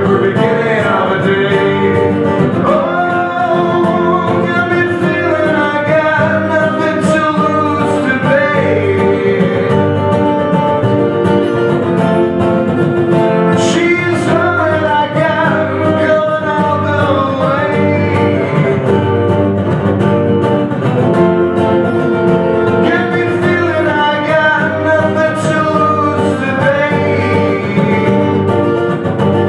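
Two acoustic guitars strumming chords while a man sings over them, as a folk song played live.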